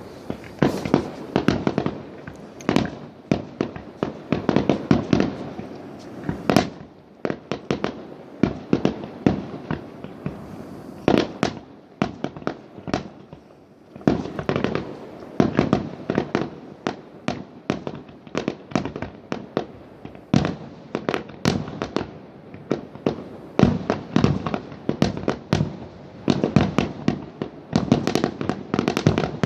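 Fireworks and firecrackers going off in rapid succession, many sharp overlapping bangs and cracks, thinning out briefly near the middle.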